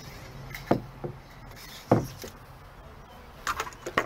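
Cleaning rod knocking and clicking against a .22 LR rifle as it is worked through the barrel: two sharp knocks, then a quick run of clicks near the end.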